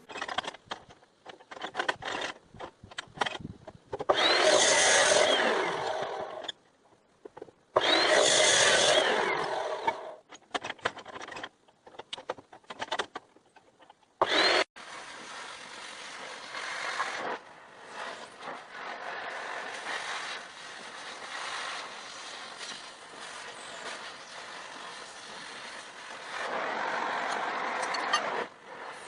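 Power-tool work on steel: two loud bursts of about two seconds each, each opening with a brief rising whine, among scattered short knocks, then a steady noise for the rest that grows louder for a couple of seconds near the end.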